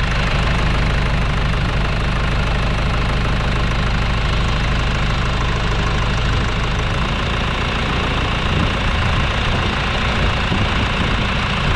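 Tractor engine running steadily and loudly.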